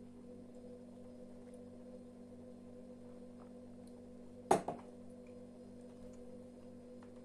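Quiet room tone with a steady electrical hum, broken once, about four and a half seconds in, by a single sharp clink of tableware.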